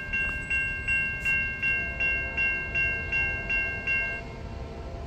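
Railroad grade-crossing bell ringing, about three strikes a second, warning of an approaching train; it stops a little over four seconds in.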